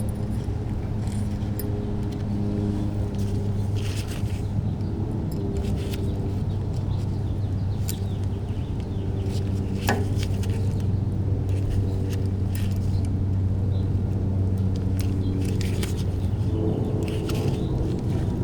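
Light metallic clicks, scrapes and jingles of a cotter pin being fitted through the spindle nut of a front wheel hub and bent over with hand tools. A steady low mechanical hum runs underneath throughout.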